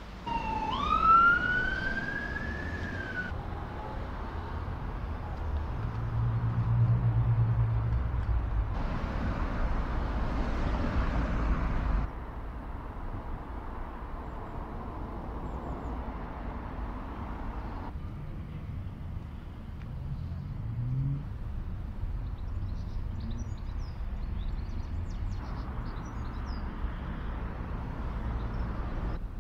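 Outdoor town ambience with traffic noise, changing abruptly between short clips. A single rising wail sounds in the first three seconds.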